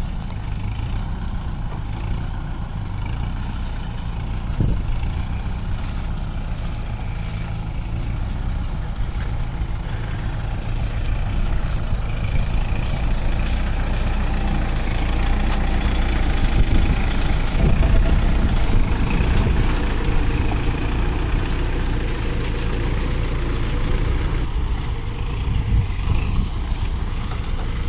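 Redlands baler at work, driven by an engine with a steady low drone. The machinery gets somewhat louder around the middle, then settles back.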